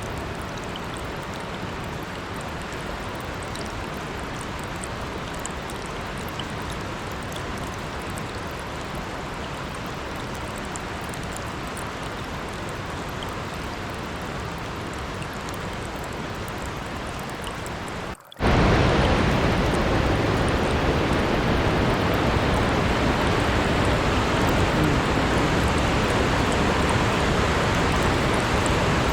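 Creek water flowing and splashing steadily. About eighteen seconds in, the sound cuts out for a split second and returns louder and fuller, a closer or faster stretch of running water.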